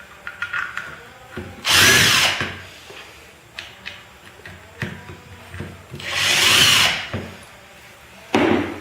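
A power drill-driver run in short bursts while the magnet generator is screwed back together: about half a second near two seconds in, a longer run of about a second later on, and a brief one near the end. Light clicks and handling sounds come between the runs.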